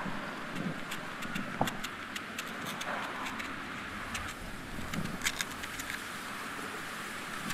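Kitchen knife paring the skin off a raw sweet potato: a run of short scraping cuts and small clicks of the blade through the peel, over a steady background hiss.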